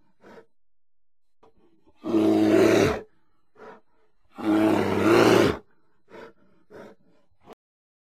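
Bear roaring twice, each roar about a second long, with short, quieter grunts before, between and after them. The sound cuts off abruptly just before the end.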